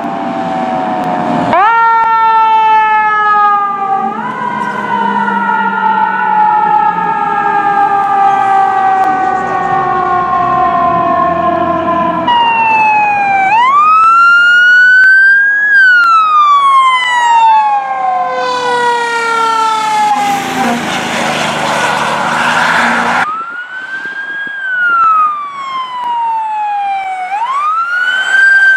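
Fire truck sirens: a siren tone gliding slowly down in pitch for several seconds, then rising and falling wails, with a burst of loud rushing noise about two-thirds of the way through.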